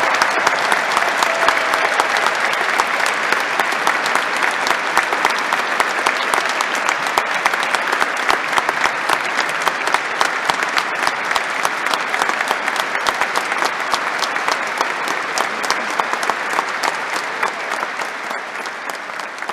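Audience applauding steadily, a dense patter of many hands clapping that eases off a little near the end.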